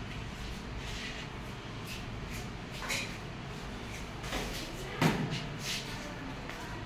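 Grass broom sweeping a concrete floor in short, scattered strokes, with one sharp knock about five seconds in.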